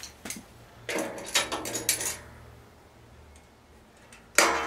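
Metal clicks, rattles and clanks from vice grips being worked on the riding mower deck's heavy belt-tension spring. A loud sharp clank near the end rings briefly.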